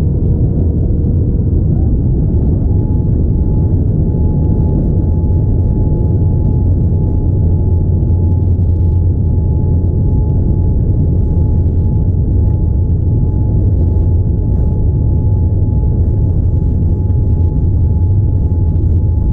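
Boeing 787-9 cabin noise: a loud, steady low rumble of engines and airflow, with a thin whine that glides up in pitch about two seconds in and then holds steady.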